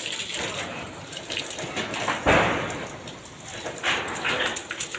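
Water from a garden hose spraying and splattering over a Rottweiler's coat and the wet brick pavers as the dog is hosed down for a bath, with a short loud burst about two seconds in.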